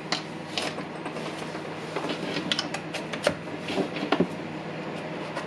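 Scattered light clicks and knocks of the parts of a disassembled cordless impact driver being handled, with several sharp clicks close together in the middle.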